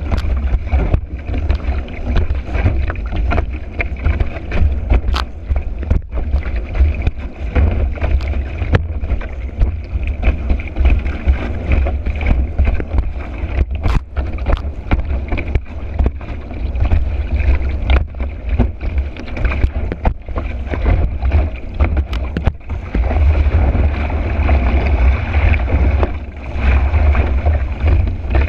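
Kiteboard riding fast over water in high wind: heavy wind rumble on a board-mounted camera's microphone and a steady rush of water, with scattered sharp knocks as the board hits chop.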